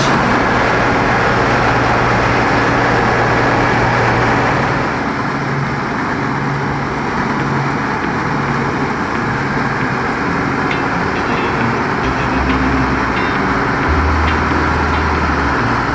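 Claas Dominator 86 combine harvester running while it cuts oats: a steady mix of diesel engine and threshing machinery noise. The sound drops a little about five seconds in.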